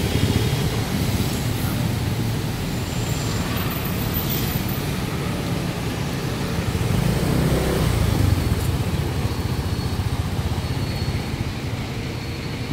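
Street traffic heard while riding a motor scooter: steady engine rumble and road noise from the scooters and the fire truck in the lane ahead.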